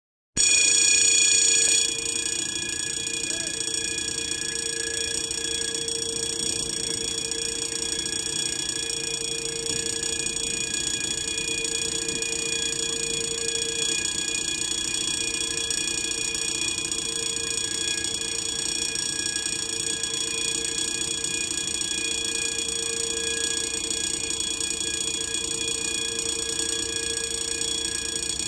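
Railway level-crossing warning bell ringing continuously, signalling an approaching train. It starts abruptly and is a little louder for the first couple of seconds, then rings on steadily.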